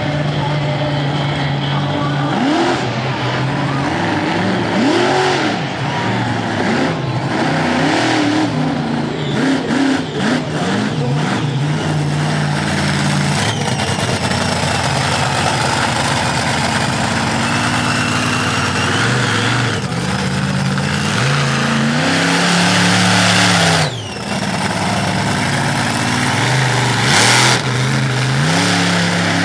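Monster truck engines revving hard, the pitch rising and falling again and again. There are a few sharp knocks about seven to eleven seconds in.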